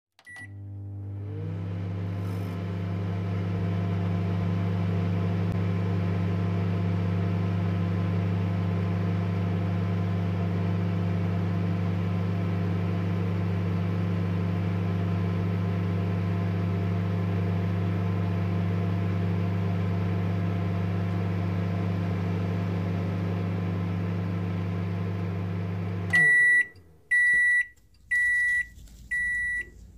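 Microwave oven running with a steady low hum, then stopping about four seconds before the end and sounding a string of short high beeps a little under a second apart, the signal that the heating cycle is done.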